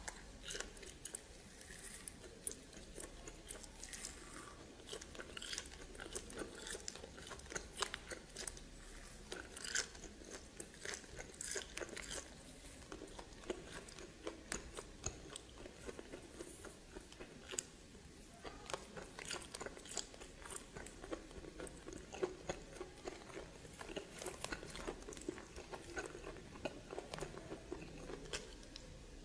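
Close-miked chewing and biting of steamed snake meat, with many irregular sharp clicks and no pauses of any length.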